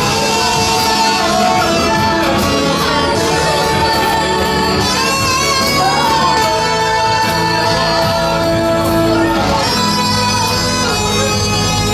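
Live worship band: several voices singing a Burmese worship song into microphones, with long-held, wavering notes, over strummed acoustic guitar, electric guitar and keyboard.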